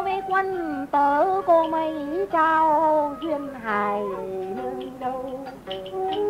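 Hát văn (chầu văn) ritual music: a melodic passage of sliding, held notes with several sharply struck onsets, heard between sung lines.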